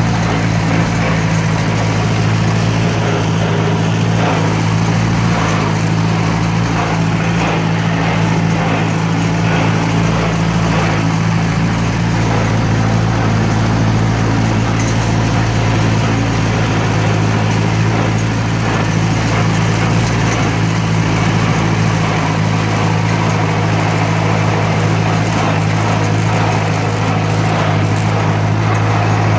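1958 Cockshutt 540 tractor's four-cylinder flathead engine running at a steady speed, with an even low drone that does not change.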